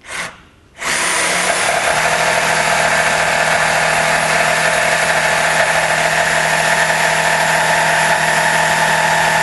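Cordless jigsaw cutting through plywood: after a short burst right at the start, the saw starts about a second in and runs steadily, its blade sawing up and down through the sheet.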